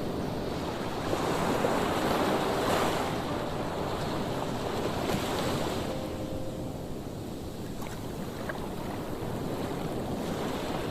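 Sea waves breaking against the stones of the shore: a steady rush of surf that swells with a breaking wave about a second or two in and again near the middle, then eases.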